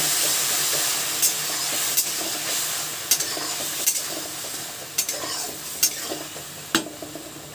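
Onion-tomato masala sizzling in a hot kadhai just after a little water has gone in, the sizzle dying down steadily. A stirring utensil knocks against the pan about once a second.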